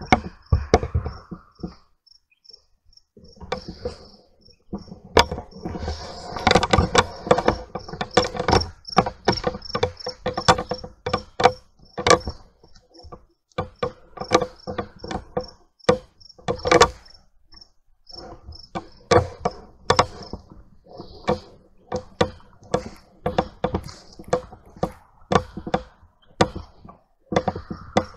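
Footsteps walking over grass and ground, a run of uneven thuds about one to two a second, with crickets chirping steadily behind them.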